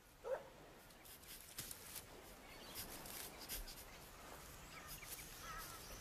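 Quiet outdoor ambience: a faint steady hiss with a few soft clicks and a handful of brief, faint animal calls, one short rising call near the start and a few small chirps near the end.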